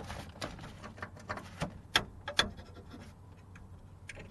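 Small clicks and scratches of a test probe and wiring being worked against the prongs of a door lock actuator's wire plug, with two sharper clicks about two seconds in.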